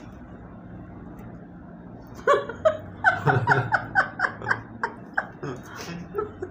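A person laughing hard in a quick run of short "ha" pulses, starting about two seconds in, over a low steady background hum.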